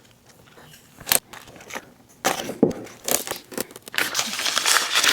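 Stickers being applied: paper backing crinkling and tearing as it is peeled, with a sharp click about a second in and rustling that gets louder toward the end.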